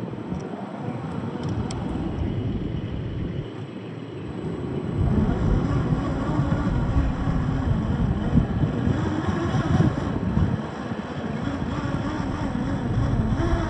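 Electric 1/10-scale RC crawler running: its 540 brushed motor and geartrain whine, rising and falling with the throttle, over the rumble of tyres on rough ground. It gets louder about five seconds in.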